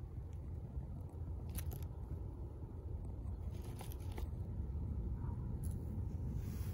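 Faint, steady low rumble with a few soft clicks and rustles.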